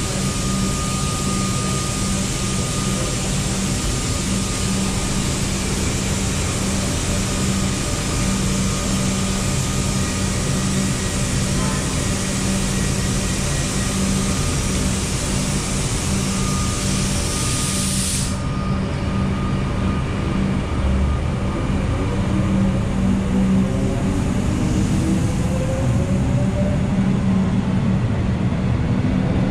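Electric suburban train in an underground station: a steady hum under a loud hiss. The high hiss cuts off suddenly about two-thirds of the way through, and near the end rising whines set in as the train starts to move off.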